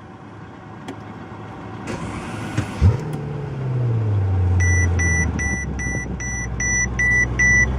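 2012 Mercedes-Benz S65 AMG's twin-turbo V12 starting from the push button, heard from the driver's seat: it fires about three seconds in, flares and falls in pitch, then settles to idle. From about halfway, a dashboard warning chime beeps steadily, about twice a second, over the idle.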